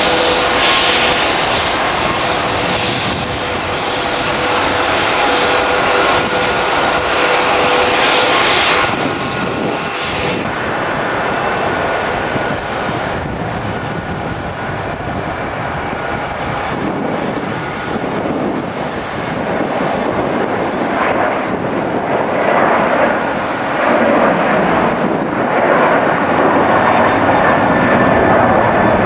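A Boeing 737's twin turbofan engines at takeoff thrust as the airliner rolls down the runway, lifts off and climbs away. Loud, steady jet noise with whining tones in the first few seconds, which give way to a broader, lower noise that swells again near the end.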